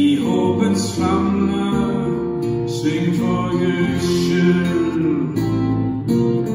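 Acoustic guitar strummed together with an upright bass, playing a slow song, with a man's voice singing along.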